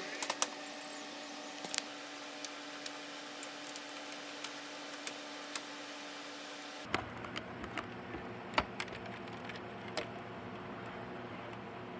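Scattered light clicks and taps of hands handling plastic trim and a wiring connector on a pickup's front end, over a steady hum.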